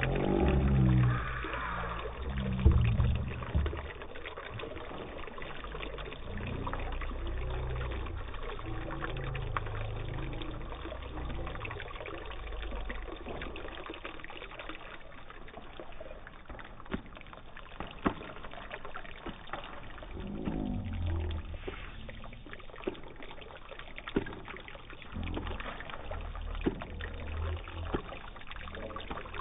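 Water trickling and pouring through a small model landscape of pebbles and mud, with a low uneven rumble and scattered sharp clicks and knocks.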